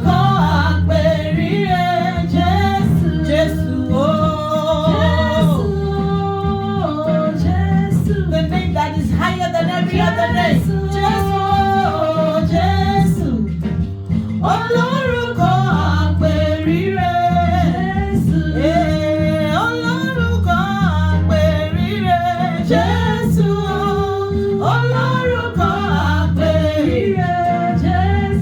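Worship song: a voice singing a melody over instrumental backing with steady held bass notes.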